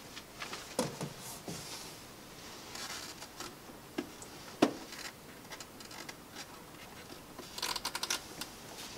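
Light handling noises on a Pepper humanoid robot: scattered clicks, taps and rustling as hands work at the soft cover on the back of its neck. A sharper click about halfway, and a quick run of rapid ticks near the end.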